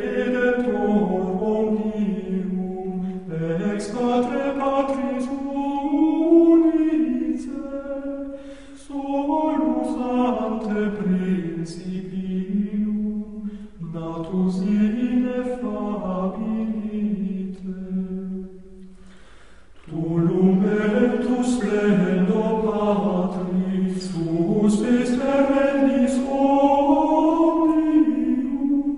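Plainchant sung slowly in unison by a choir: long, smoothly moving phrases with short breath pauses between them.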